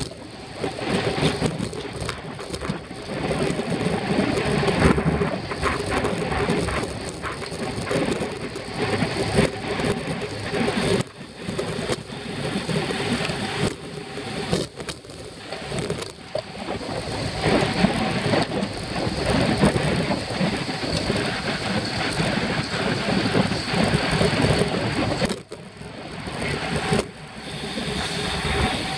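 Wind buffeting a bicycle-mounted camera's microphone at race speed, with rolling road noise from the bike. The rumble swells and eases unevenly and dips briefly a few times.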